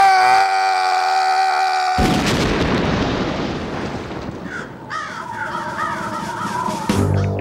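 Cartoon cat's long, held scream, cut off about two seconds in by a large cartoon explosion that starts suddenly and slowly dies away. In the last few seconds comes a run of short repeated calls.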